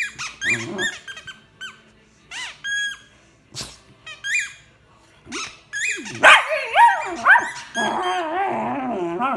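A puggle dog making short, high-pitched squeaks and yips, then from about six seconds in a louder, continuous run of wavering whining and growling.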